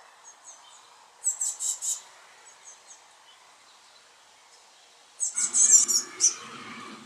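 Blue tits calling: a quick burst of high, rapid chirps about a second in, faint single chirps after it, then a louder burst of chirps near the end.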